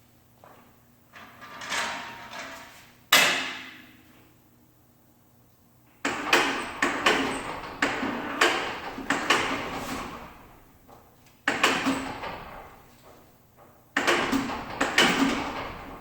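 Bursts of knocking and clattering, with hard objects striking one another in quick runs, and a single sharp knock about three seconds in, the loudest of them.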